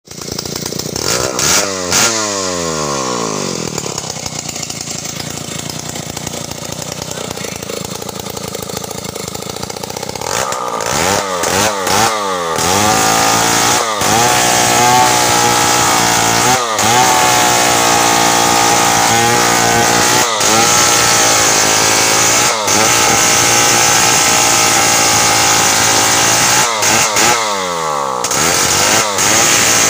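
Stihl chainsaw engine revving and dropping back to a lower, quieter speed, then opened up again about a third of the way in and run at full throttle as it cuts into the base of a tree trunk, the revs dipping briefly every few seconds.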